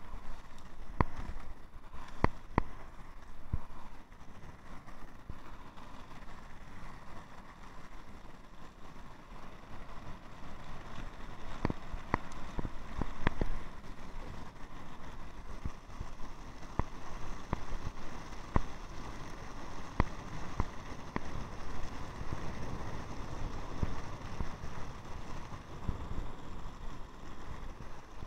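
Skateboard wheels rolling fast downhill on an asphalt path: a steady rumble, with scattered sharp clicks and knocks from the board and wind on the microphone.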